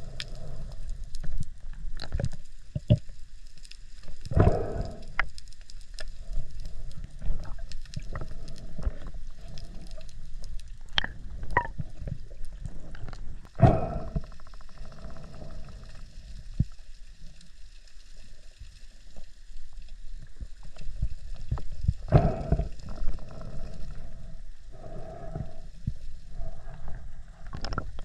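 Underwater sound heard through a submerged camera: a low, muffled rumble of moving water with scattered sharp clicks and crackles, and a louder whoosh every several seconds.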